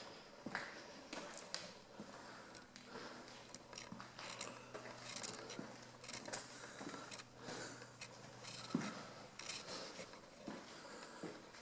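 Irregular small clicks, clinks and rustles of someone moving about among clutter and debris, with a faint low steady hum that stops about nine seconds in.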